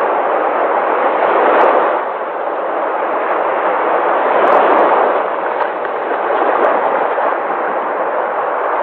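Sea waves washing in continuously, a loud steady rush of surf that swells slightly about a second and a half in, again around four and a half seconds, and once more near six and a half seconds.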